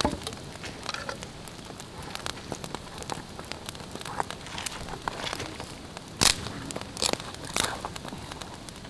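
Wood campfire crackling and popping, with a few louder sharp snaps about six to seven and a half seconds in.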